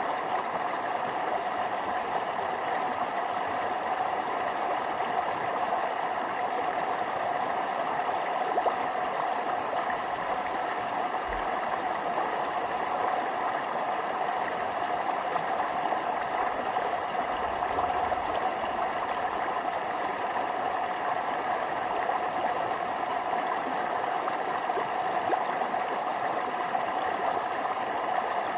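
Forest stream flowing steadily over small waterfalls: an even, unchanging sound of running water.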